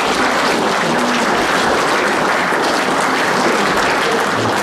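A large audience of students clapping steadily in applause, filling a big hall.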